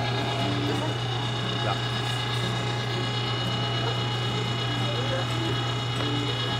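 MEAT! electric meat grinder running steadily under load, its motor humming as seasoned pork is pushed through the coarse plate for a second grind.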